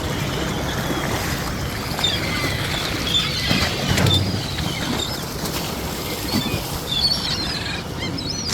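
Steady low rumble of a shrimp boat at sea, with scattered short high-pitched chirps and a brief low thump about four seconds in.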